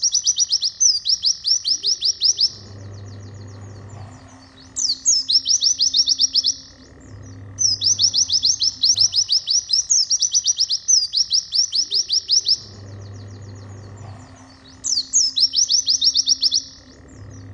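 White-eye (pleci) song: bursts of rapid, high chirping trills, several quick notes a second, repeating with short pauses between them. Background music with guitar runs beneath.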